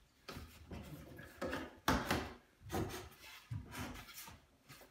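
Wooden window jamb board scraping and knocking against the window frame as it is pushed by hand into the opening, in several short irregular strokes, with a sharp knock about two seconds in.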